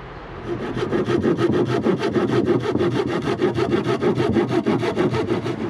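Handsaw cutting through a wooden board with quick, even back-and-forth strokes, starting about half a second in and stopping just before the end.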